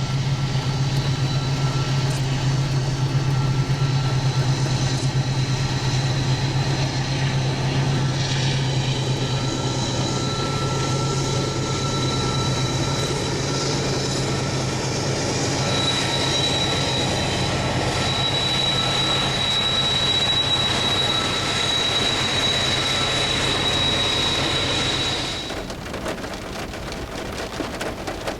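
Freight train passing with a steady low drone and a thin, high wheel squeal that grows louder in the second half, cutting off sharply near the end.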